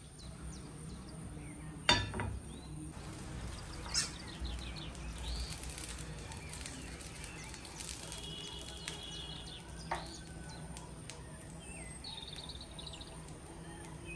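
A flat dosa pan set down with a sharp metal clank on a gas stove's grate about two seconds in, followed by a few lighter knocks as oil is wiped over it, over a steady low hum. Birds chirp briefly in the background twice.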